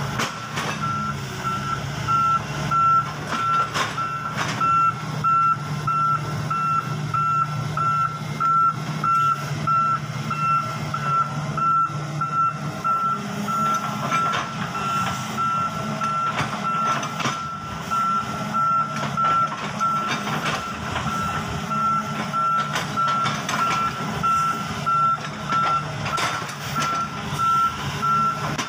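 Volvo wheeled excavator at work: a high warning-alarm beep repeating steadily and quickly over the steady running of its diesel engine, with occasional knocks.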